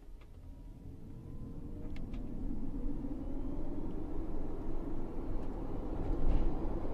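Renault Master Z.E. electric van accelerating from a standstill, heard from inside the cab: a faint electric-motor whine rising slowly in pitch over a low road and tyre rumble that grows louder as the speed builds, with no engine sound and no gear changes. A couple of light clicks come near the start and about two seconds in.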